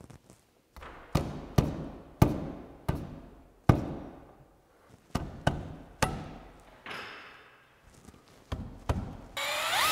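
A hand striking a wooden 4x4 handrail about ten times in uneven succession, knocking the rail and post into line against a level, each knock ringing briefly. Just before the end a cordless drill-driver starts with a rising whine.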